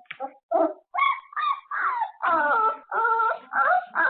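Labrador puppies whimpering and yipping in a rapid string of short, pitched calls, louder from about a second in, heard through a surveillance camera's microphone.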